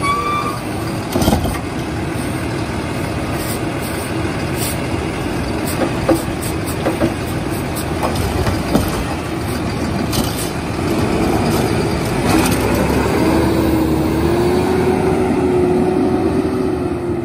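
Kenworth garbage truck's diesel engine running while its Curbtender automated side-loader arm lifts and dumps a cart, with several sharp clanks of the cart and arm. About 11 s in the engine gets louder and holds a steady note as the truck pulls away.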